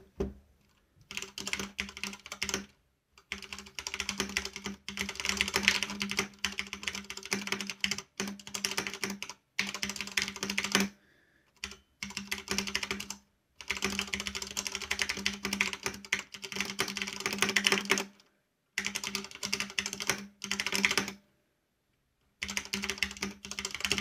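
Fast typing on an iKBC W200 wireless mechanical keyboard with Cherry MX Red switches: rapid runs of keystroke clicks and clacks, broken by a few brief pauses.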